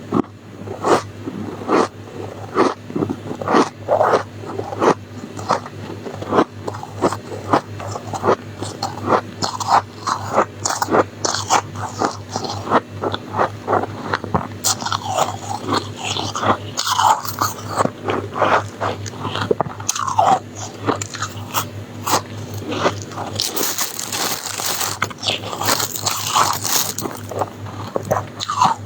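Close-miked crunching and chewing of soft, snow-like freezer frost ice, in quick crisp bites several times a second, with a longer hissing crunch about three-quarters of the way through.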